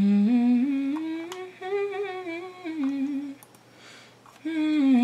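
A woman humming a melody without words: one phrase of about three and a half seconds, a short pause, then a second phrase starting near the end.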